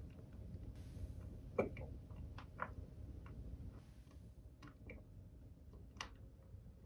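Faint room tone with a low rumble and scattered small clicks and taps, the sharpest about one and a half seconds in and another about six seconds in.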